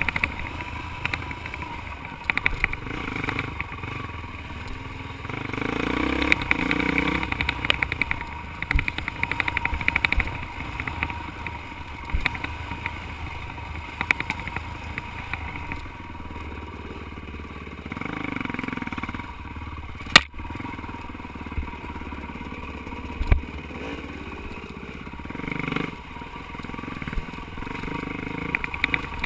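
Dirt bike engine running on a rocky single-track climb, its revs rising and falling, with clatter from the bike over the rough ground. A single sharp knock stands out about two-thirds of the way through.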